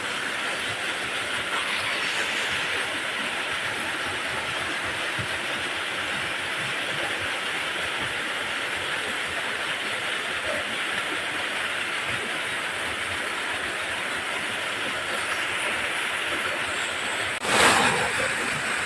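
Waterfall pouring into a deep pool: a steady, even rush of falling water. A short louder burst of noise comes near the end.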